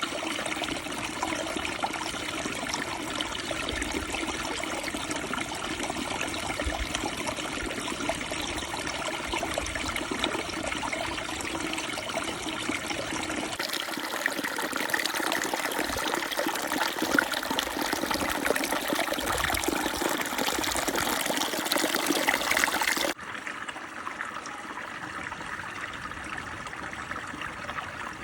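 Mountain river flowing, a steady rush of water. It turns louder and brighter about halfway through, then drops back suddenly some five seconds before the end.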